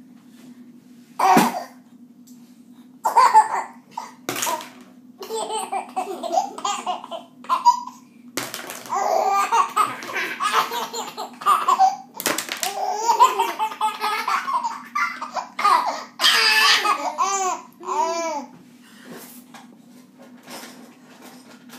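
A baby laughing in repeated bursts of belly laughs, ending in a quick run of rising-and-falling giggles about three quarters of the way through. A few sharp clatters of thrown spoons come in between the laughs.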